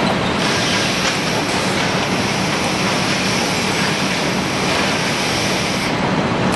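Automatic ceramic-tile packing machine running: a steady mechanical din of motors and conveyors with a low hum. A higher hiss joins about half a second in and stops near the end.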